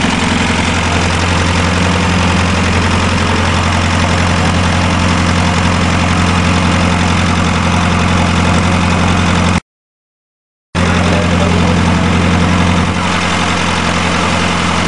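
Dutch diesel engine of a mini tractor puller idling steadily with a low, even drone. The sound cuts out completely for about a second partway through, then carries on unchanged.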